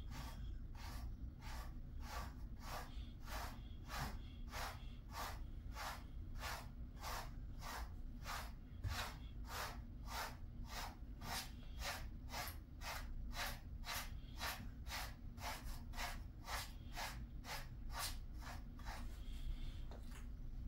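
Grooming brush raking through a Jindo dog's coat in quick, regular strokes, about two a second, each a short scratchy swish.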